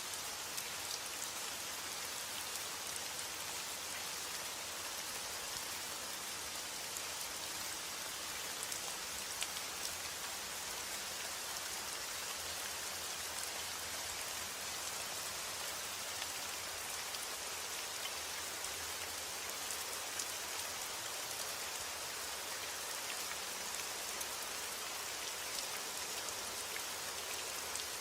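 Heavy rain falling steadily on a roof: an even hiss sprinkled with small sharp ticks of single drops.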